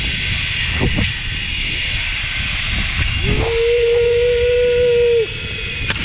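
Zipline trolley running along the steel cable: a steady high hiss, with wind rumbling on the microphone. About three seconds in a held tone rises and stays level for about two seconds, then cuts off suddenly.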